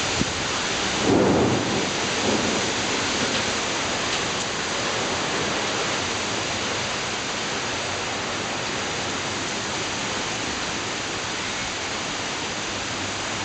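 Heavy storm rain pouring down as a steady hiss, with a louder low rumble swelling about a second in and dying away over the next couple of seconds.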